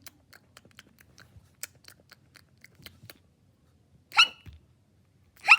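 A voice imitating hiccups: two short, loud, rising "hic" sounds about a second and a half apart, for a doll that still has the hiccups. Before them come faint small clicks and taps.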